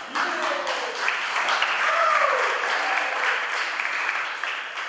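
Audience applauding, with a couple of voices calling out over it; the applause dies away near the end.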